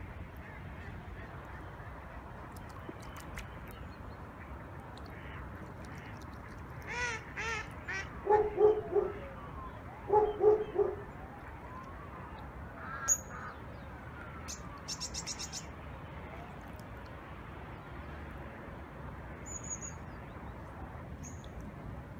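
Goose barking: a few softer calls about seven seconds in, then two loud bursts of short barks around eight and ten seconds in, and one more call a little later. A small bird chirps faintly in the background.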